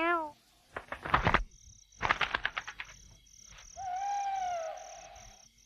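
Night-time wildlife sound effect: a steady pulse of high cricket chirps, two rattling croaks of frogs, and one long drawn-out call with a slow rise and fall near the end.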